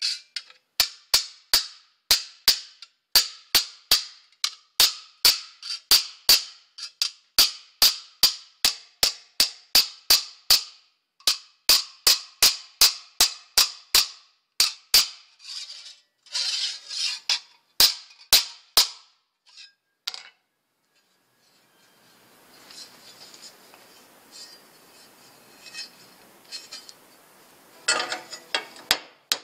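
Hand hammer striking a piece of sheet steel over an anvil horn, sharp ringing metallic blows about two to three a second, shaping a new bumper end piece. The blows stop for several seconds of faint hiss, then a quick run of blows comes near the end.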